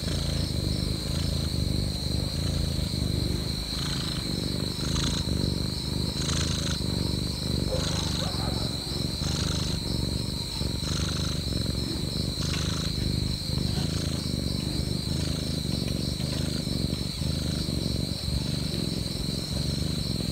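Domestic cat purring close up: a low rumble that pulses in even cycles, going on steadily.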